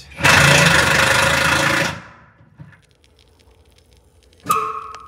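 A loud hiss of soapy leak-test solution being sprayed onto the bus's air-brake fittings, lasting about two seconds. About four and a half seconds in comes a sudden, sharper sound with a brief ringing tone.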